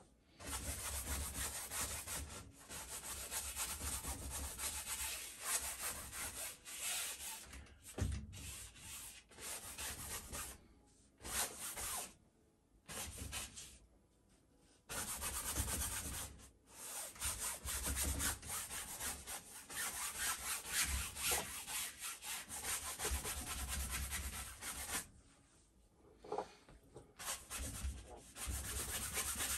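A wide flat paintbrush scrubbing paint across a stretched canvas: long stretches of scratchy rubbing, broken by a few short pauses between strokes.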